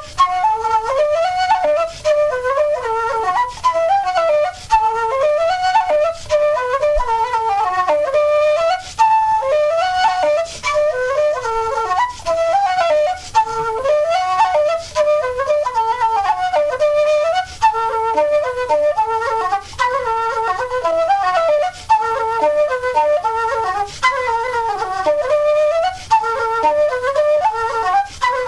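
Solo flute playing a fast, ornamented Irish traditional dance tune, a single melody line with short breaks for breath every couple of seconds.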